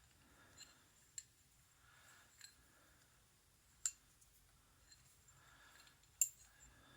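Small metal padlock parts being handled: three sharp clicks, the loudest near the end, over faint rustling.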